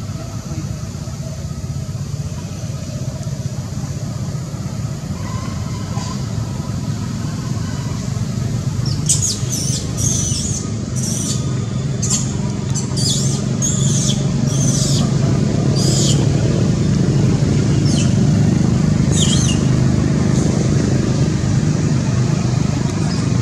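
Steady low rumble, like distant traffic, that grows a little louder in the second half. Over it, from about nine seconds in, come a dozen or so short high chirps that slide in pitch.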